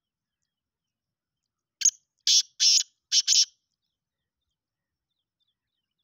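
Black francolin calling: one harsh, grating phrase of five quick notes, the last two run together, starting about two seconds in and lasting under two seconds.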